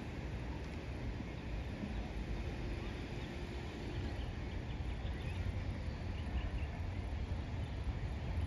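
Wind rumbling on the microphone over outdoor ambience, with faint distant hoofbeats of a horse cantering on sand arena footing.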